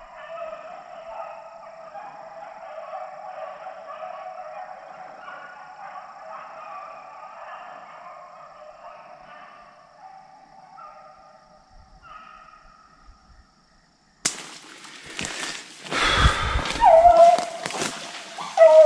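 A pack of hunting hounds baying in the distance, many voices overlapping and wavering, as they run a deer. About fourteen seconds in the sound cuts off abruptly to loud rustling and thumps, then a single dog whines close by.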